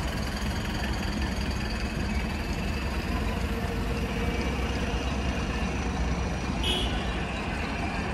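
Steady low rumble of street noise, with a brief high squeak near the end.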